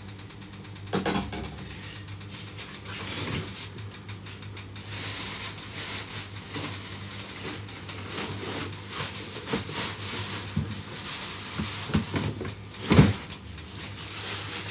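Kitchen handling sounds: scattered knocks and clinks of pans and utensils, the loudest knock near the end, over a steady hiss.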